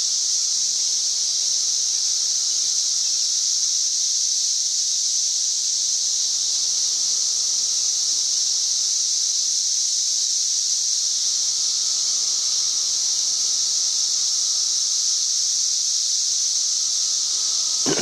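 Chorus of many cicadas singing together: a loud, steady, high-pitched drone that does not let up.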